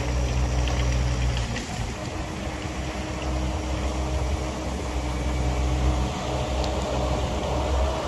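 Vermeer tracked mini-skidsteer's engine running steadily close by. Its low hum drops away briefly about two seconds in, then picks up again.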